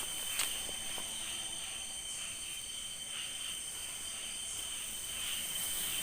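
A chorus of crickets and other insects: several steady high-pitched trills held without a break, with softer chirps repeating about once a second and a faint click about half a second in.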